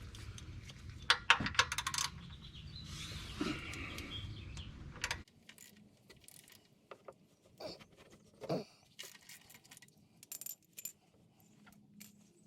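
Metal objects clinking and rattling, with a quick run of sharp clinks about a second in. A steady low hum cuts off suddenly about five seconds in, and scattered small clicks and knocks follow.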